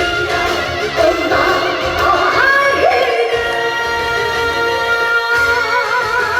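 A woman singing a trot ballad live with band accompaniment, her melody gliding between notes and ending on a long held note with vibrato.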